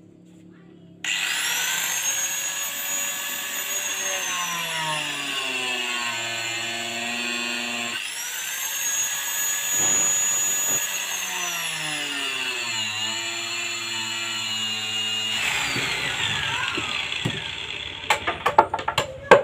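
Electric angle grinder switched on about a second in, whining at high speed; its pitch sags twice and recovers as the disc bites into wood to enlarge a hole. It is switched off about 15 seconds in and winds down, and a few sharp clicks and scrapes follow near the end.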